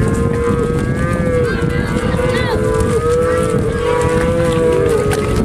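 Black Angus cattle mooing: several long calls overlap, each held at a steady pitch, over a constant low rumble.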